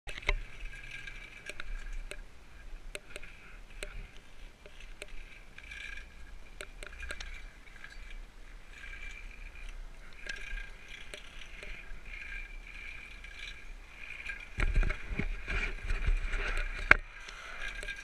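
Riding a chairlift: a steady mechanical hum with scattered clicks from the moving lift. Near the end a louder low rumble comes in, ending with a sharp click.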